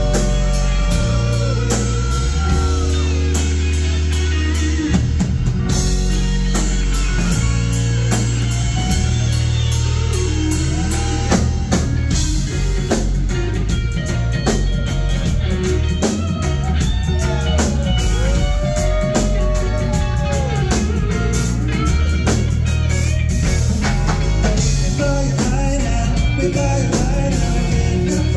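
Live rock band playing loudly: electric guitars, bass guitar and drum kit, with long held and gliding melodic notes over a steady bass line, heard through the venue's PA.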